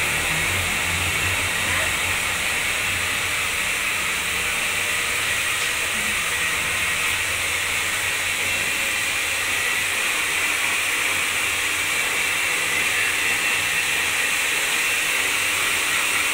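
Hand-held hair dryer blowing steadily on wet hair: a constant airy hiss with a thin high whine in it.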